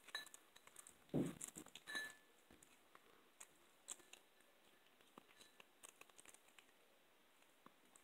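An eleven-month-old kitten chewing raw chicken back, with sharp crunches and clicks of teeth on bone and cartilage. The loudest cluster comes about a second in, then the chewing thins out to sparse faint clicks.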